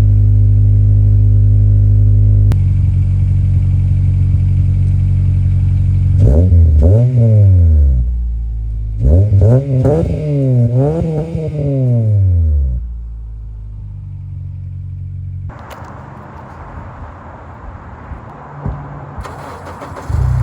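2004 Acura TSX's 2.4-litre four-cylinder through a Tsudo SP2 cat-back exhaust, idling steadily, then revved: one long rev rising and falling, then three quick blips before settling back to idle. Past the middle the engine sound gives way to a quieter, steady rushing noise.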